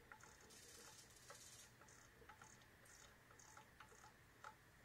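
Near silence: faint room tone with scattered light ticks at irregular intervals.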